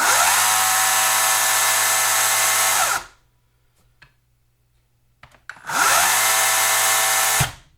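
HYCHIKA 14-inch 40 V brushless cordless chainsaw running its chain with no load, in two trigger pulls of about three and two seconds. Each time it spins up at once to a steady whine and stops quickly on release, held by the saw's electric chain brake.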